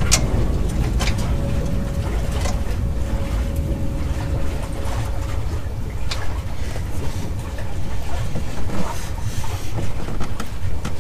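A steady low rumble of background noise, with a few sharp clicks of a socket ratchet and bolt on the car's rear motor mount bracket: three in the first couple of seconds and one more a little past the middle.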